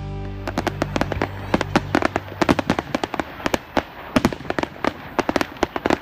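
Fireworks bursting in quick, irregular succession, sharp cracks several times a second. Show music fades out under them in the first two seconds.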